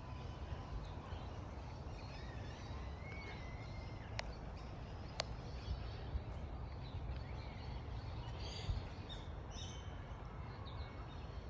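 Outdoor garden ambience: a steady low rumble with faint, scattered bird chirps, and two sharp clicks about four and five seconds in.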